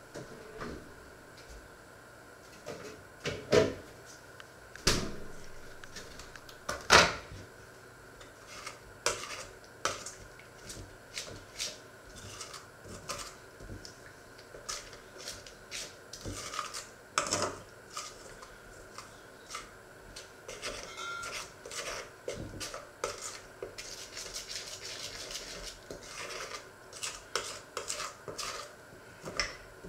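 A utensil stirring and scraping batter in a stainless steel mixing bowl, with many small metal-on-metal clinks. Three sharp, louder knocks in the first seven seconds as the bowl and board are set down on the wooden counter.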